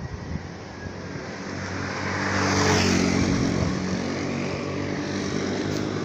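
A motor vehicle drives past on the road. Its noise swells to a peak about two and a half seconds in and drops in pitch as it goes by, and a steady engine hum carries on after it.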